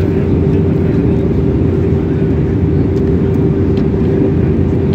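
Steady drone inside a jet airliner's cabin during the descent to land: engine and airflow noise coming through the fuselage, with a steady hum in it.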